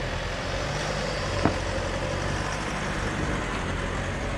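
Ute engine running steadily at low speed under load on a rocky hill climb, heard from inside the cab with rumbling track noise, and a single sharp knock about one and a half seconds in.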